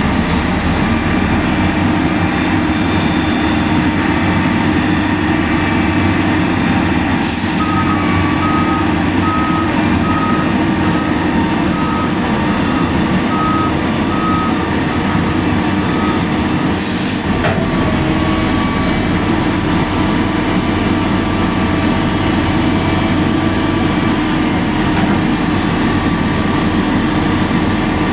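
A heavy machine's engine running steadily under load. About a quarter of the way in, a back-up alarm beeps evenly for roughly seven seconds, and two brief bursts of hiss cut in, one as the beeping starts and one shortly after it stops.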